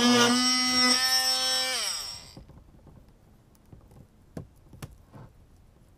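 Cordless drill running at speed against a sheet-metal van ceiling panel, then the trigger is released and the motor winds down with a falling whine about two seconds in. A few faint clicks of the tool and panel being handled follow.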